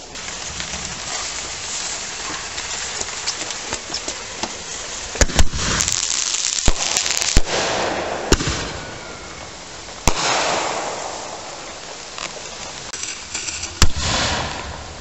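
Consumer fireworks going off: a steady hissing crackle of burning sparks, with sharp bangs scattered through, several in quick succession in the middle and single ones later.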